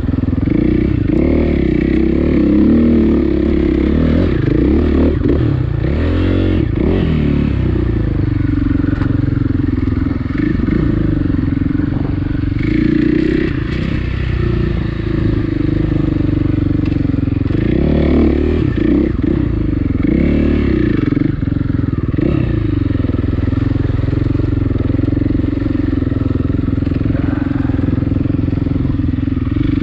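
Dirt bike engine running steadily under way, its pitch dropping and climbing again several times as the throttle is eased off and reopened.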